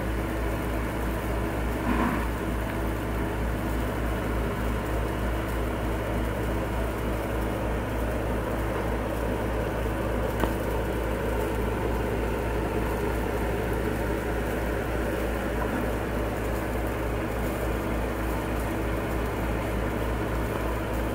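Steady low mechanical hum, as of a fan or appliance running, with a faint knock about two seconds in and another about ten seconds in.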